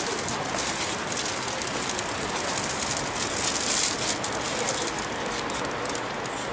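Cellophane wrapping on flower bouquets crinkling and rustling in a continuous, irregular crackle.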